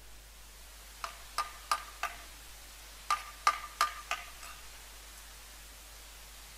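A steel trowel tapping a freshly laid brick to settle it in its mortar bed: eight sharp taps in two quick groups of four, each with a brief ringing note.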